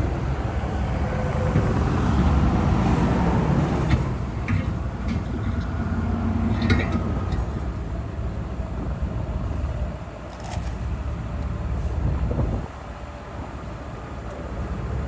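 Highway traffic, heavy trucks among it, rumbling past on the freeway beside the shoulder, rising and fading as vehicles go by. A few short sharp clicks or knocks are heard in the middle.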